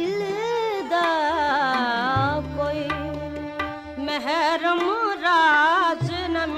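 South Asian vocal music: a singer's two long, ornamented phrases with a quick shake on the held notes, over tabla strokes and a steady drone.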